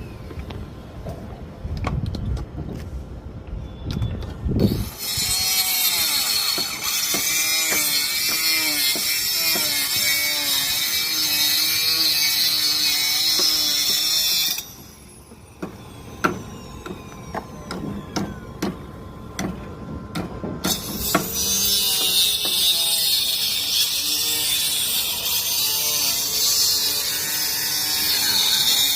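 Construction machinery running with a loud hiss and repeated rising-and-falling whines. It starts suddenly about five seconds in, cuts out about fifteen seconds in, and starts again about twenty-one seconds in, with knocks and clicks in the gap.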